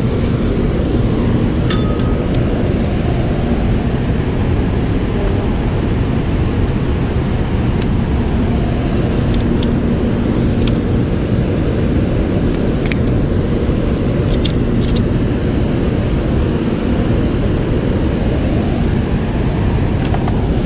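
Steady low roar of water pouring over a dam spillway, with a few faint scattered clicks.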